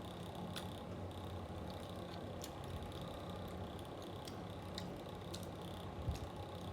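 Steady hum of an electric fan, with scattered small clicks from someone eating, and a soft thump near the end.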